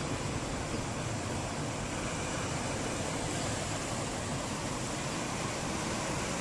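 Ocean surf breaking and washing up a sandy beach: a steady rushing noise with no distinct single wave crashes.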